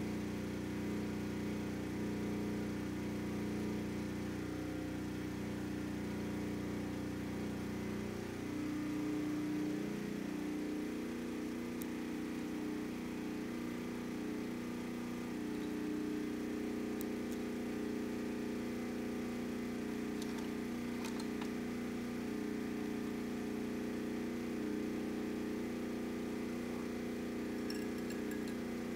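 Microwave oven running with a steady hum. The hum changes about nine seconds in, as its lower part drops away, and a few faint clicks follow.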